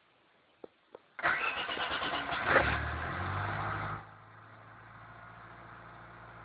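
Car engine, run on a MegaSquirt MS2 plug-and-play ECU with low-impedance injectors, being started. A couple of small clicks come first. About a second in it cranks and catches, running loud and unsettled for a few seconds. About four seconds in it drops to a quieter, steady idle.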